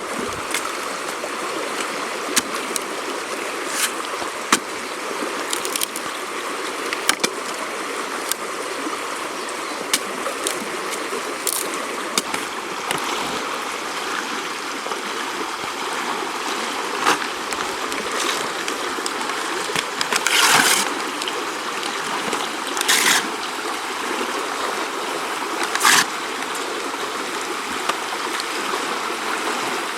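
River water flowing steadily, with scattered small sharp ticks and three short louder bursts in the second half.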